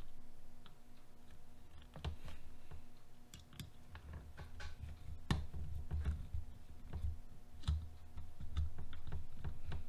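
Hand screwdriver driving a small screw into the plastic front-module parts of an RC truck kit, with irregular light clicks and knocks as the tool and parts are handled. The sharpest click comes about five seconds in.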